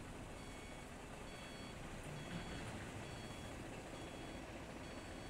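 A string of short electronic warning beeps, alternating between two pitches, over a faint steady low rumble.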